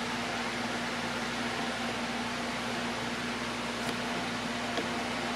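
Steady machine hum with one constant low tone, and two faint ticks late on.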